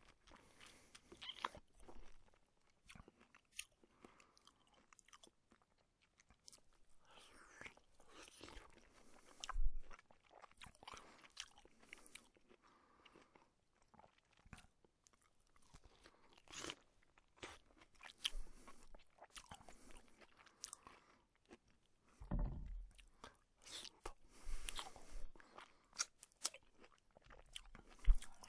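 A person biting into and chewing a juicy piece of fruit close to the microphone: irregular wet crunches, slurps and chewing sounds, with a few louder bites.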